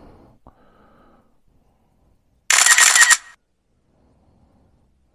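Camera shutter going off once as a photo is taken: a loud, sharp burst lasting under a second, about two and a half seconds in.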